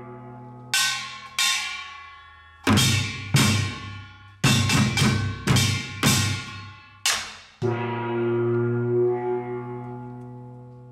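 Korean traditional percussion: drum and gong strokes in an uneven, quickening pattern, each stroke ringing on. A last stroke, about seven and a half seconds in, rings on and slowly fades.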